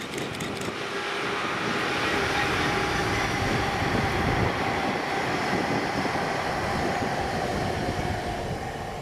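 Freight train hauled by a Class 66 diesel locomotive running past, a steady loud rumble of wheels and wagons on the rails with a faint ringing tone that sinks slowly in pitch.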